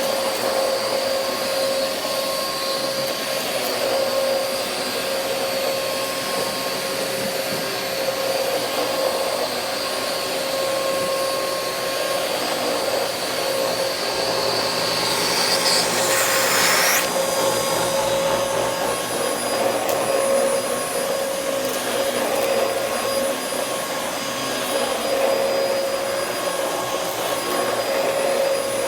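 Vacuum cleaner running steadily, a motor hum with a high whine over it. About 16 seconds in comes a brief rush of hiss, after which the whine is fainter. The owner suspects the vacuum may be clogged.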